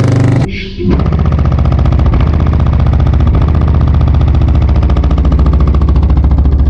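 Car-audio subwoofers playing deep, sustained bass at extreme volume, the recording heavily overloaded, after a brief dropout about half a second in.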